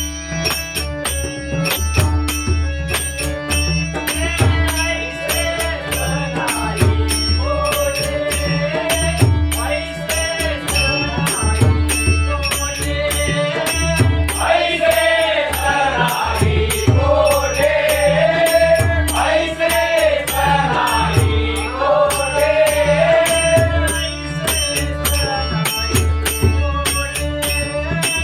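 Devotional abhang bhajan: a male voice sings a drawn-out melody over a steady pakhawaj rhythm and jingling small hand cymbals. The singing comes in a few seconds in and is strongest in the middle; the pakhawaj and cymbals keep time throughout.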